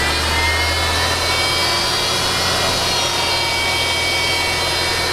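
Mercedes engine held at raised revs, with a high whine from the serpentine-belt idler pulley that rises and falls with engine speed and drops back near the end. The whine, like a dental drill, comes from the pulley's bearing failing under belt tension.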